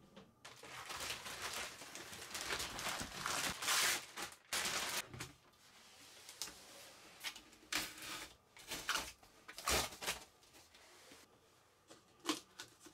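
Packaging being pulled off by hand: plastic film and cardboard rustling and crinkling, with the tape peeling away. This turns to scattered short scrapes and knocks as cardboard and foam inserts are lifted out.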